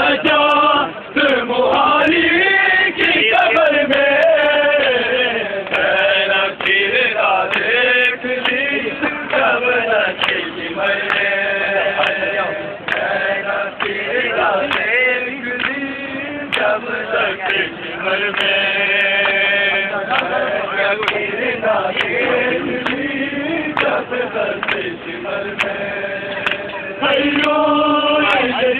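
A group of men chanting a noha, a Shia mourning lament, loudly in unison, with sharp slaps of matam (chest-beating) cutting through the singing.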